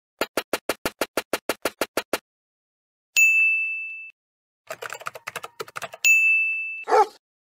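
Cartoon sound effects. A rapid, even ticking of about eight clicks a second runs for two seconds, then a bright bell ding rings out and fades: the classic 'idea' ding. A spell of computer-keyboard typing follows, then a second identical ding as the message is sent, and a short pitched sound near the end.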